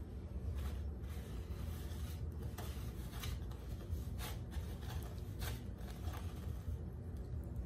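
Dry breadcrumbs being rubbed and pressed by hand onto an egg-dipped bread-and-chicken cutlet in a pan: a series of short, soft scrapes and rustles at irregular moments, over a steady low hum.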